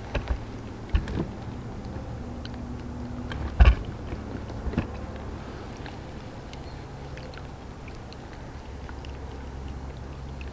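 Scattered knocks and clunks of fishing gear being handled in a small boat, about six in all, the loudest a little past three and a half seconds in, over a steady low hum.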